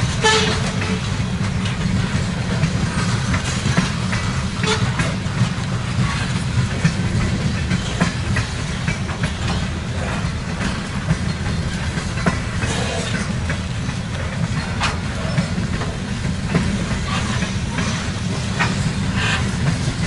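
Freight train of covered hopper cars rolling steadily past, with a constant low rumble and irregular sharp clicks and clanks from wheels and couplers.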